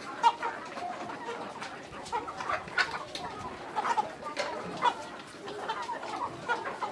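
A flock of chickens clucking, with many short calls overlapping throughout and a few sharp knocks, the loudest just after the start.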